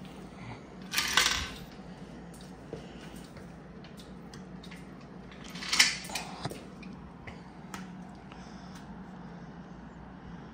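Scattered light metallic clinks and two louder clattering noises, one about a second in and a sharper one near six seconds, over the steady hum of a garage air conditioner.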